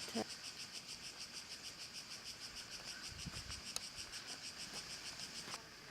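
Insects chirring steadily in a fast, even pulse, with a single faint click partway through.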